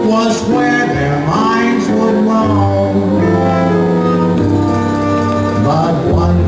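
Recorded song played for the dance: a voice singing a melody over instrumental accompaniment with sustained bass notes.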